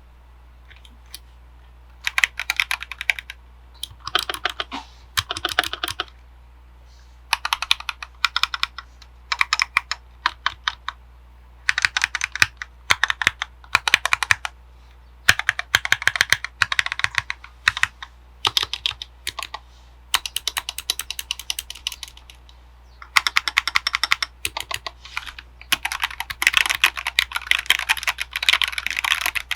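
Typing on an Akko ACR61 mechanical keyboard with Akko Jelly Black switches and double-shot PBT keycaps: fast keystroke clatter in bursts of a second or two with short pauses, nearly continuous near the end. A low steady hum lies underneath.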